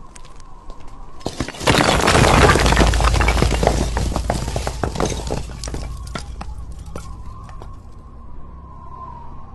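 A brick wall collapsing: a sudden crash about a second and a half in, with a low rumble under it, then bricks clattering and tumbling, dying away over several seconds into scattered knocks.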